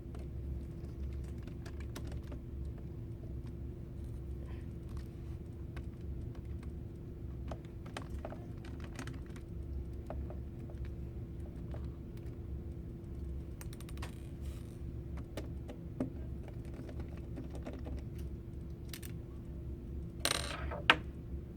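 Scattered small clicks and taps of a screwdriver and plastic laptop parts as the screen screws are taken out of a Chromebook, over a steady low hum. A louder clatter with one sharp knock comes near the end.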